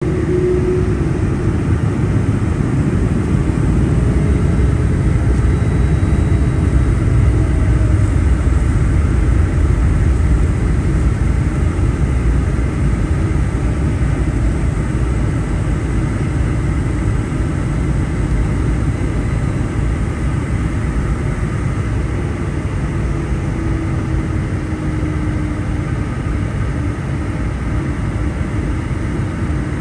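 Boeing 757-200 engines at low thrust while the airliner taxis, heard from a window seat inside the cabin over the wing: a steady low rumble with a faint hum on top that comes in again near the end.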